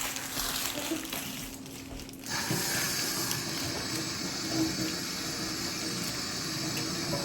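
Kitchen tap running, water pouring steadily. It eases off for a moment about two seconds in, then runs on.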